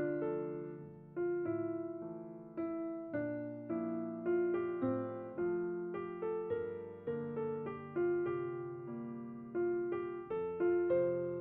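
Background piano music: a gentle melody of struck notes, each fading before the next.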